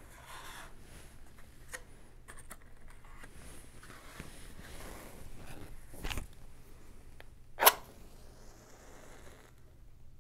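Rustling and small handling clicks, then a wooden match struck once, sharply, near the end, the loudest sound, followed by a short hiss as it flares.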